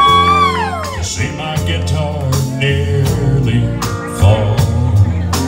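Live country band playing with electric guitars, bass and drums on a steady beat. A long held high note slides down and falls away about a second in.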